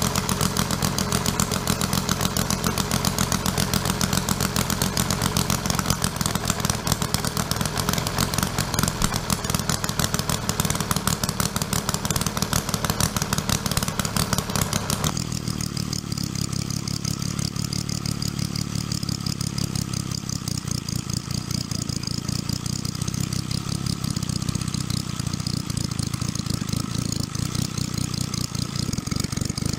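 Homemade 60 cc three-cylinder model ship's-diesel-style engine running steadily with a fast, even beat of firing strokes. About halfway through the sound turns duller as the high clatter falls away.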